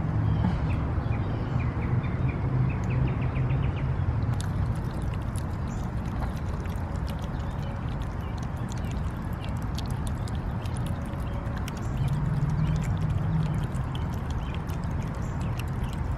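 Several cats eating wet pâté cat food from a plastic platter: wet chewing, lapping and lip-smacking with many quick clicks, over a steady low hum.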